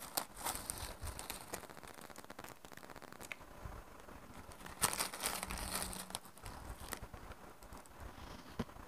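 Faint crinkling and crackling as biscuits are crumbled into a plastic cup of yogurt, with light clicks of a spoon and a louder rustle about five seconds in.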